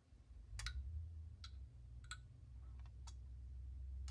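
Academy Da Vinci flying pendulum clock kit running after being wound and released: light plastic clicks at an uneven pace, roughly one every half second to one second, over a low steady hum.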